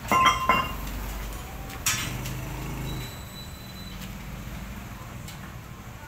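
Metal-on-metal clinks and a clank as a manual lathe's headstock levers and chuck are worked by hand. A few ringing clinks at the start are the loudest, a sharp clank follows about two seconds in, and a low hum runs under the first few seconds.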